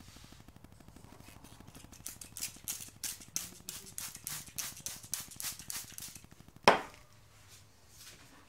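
Hand-pump spray bottle squirting water onto a paper towel: a quick run of about a dozen and a half short hissing sprays, about four a second, followed by a sharp knock.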